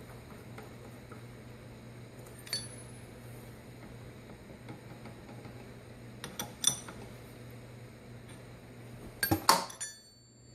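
Steel milling tooling (collet and edge finder) being handled and clinking against metal: a single ringing clink about two and a half seconds in, a few more around six and a half seconds, and the loudest cluster of clinks near the end, over a low steady hum.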